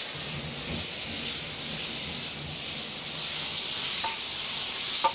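Beef tenderloin sizzling on a kamado grill grate at over 700 degrees, with whiskey just poured over it to flambé: a steady hiss throughout.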